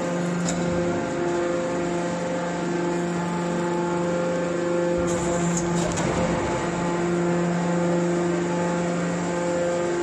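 Hydraulic scrap-metal baler's power unit running: a steady hum with a hiss over it, and a few faint clicks about halfway through.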